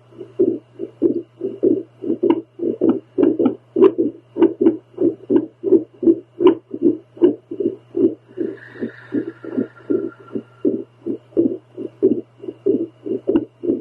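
A woman's heartbeat heard through a handheld home Doppler: a rhythmic train of pulses, about three a second, over a steady low hum.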